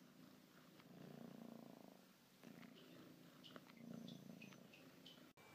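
Domestic cat purring faintly in about three swells, each roughly a second long, with a few small clicks.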